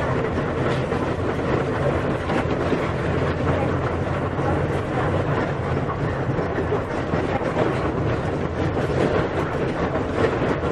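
Volksbus 17.230 EOD city bus running along its route: a steady engine drone with rattling from the body.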